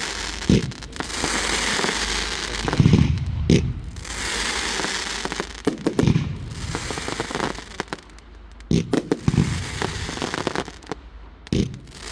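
Fireworks going off: repeated sharp bangs with a low boom, with stretches of crackling between them.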